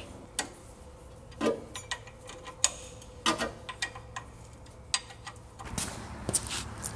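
A wrench working the bolts on a disc-brake caliper, giving irregular metal clicks and light taps a second or so apart. Near the end comes a short burst of rustling and handling noise.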